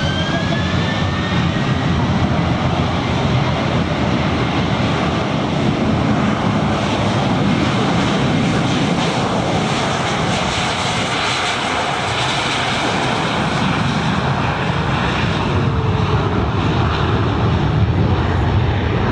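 Airbus A321 jet engines at takeoff power during the takeoff roll: a loud, steady, full-range rumble and hiss. A rising whine from the engines spooling up levels off in the first second or so.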